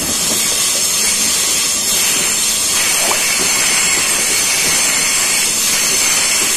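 Freight train rolling past: a loud, steady rumble and clatter of steel wheels on the rails, with faint high wheel squeal.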